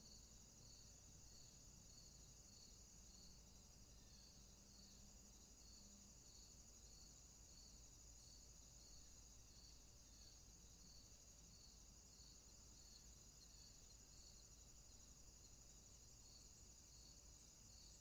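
Faint insect chorus: a steady high cricket trill, with a second chirp pulsing a little faster than once a second, over soft background hiss.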